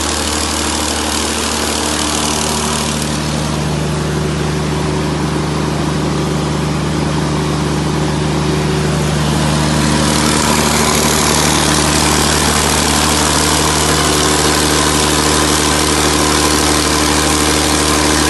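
600 kVA Perkins diesel generator running steadily, a hum made of several steady tones. About ten seconds in it grows a little louder and brighter.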